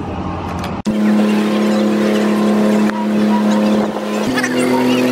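A boat's engine running at a steady speed, heard from on board as an even hum, after a second of wind noise on the microphone. The sound breaks off abruptly about a second in and resumes, and the engine's pitch steps slightly higher about four seconds in.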